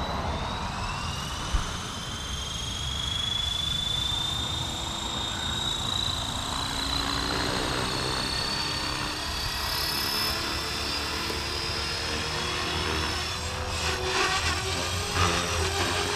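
Blade Fusion 360 3S electric RC helicopter spooling up on the ground: the motor whine rises slowly in pitch as the rotor head comes up to speed. Near the end the rotor chop grows louder as the helicopter lifts off.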